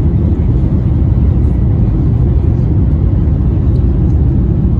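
Jet airliner cabin during takeoff: a loud, steady low rumble of the engines and rushing air.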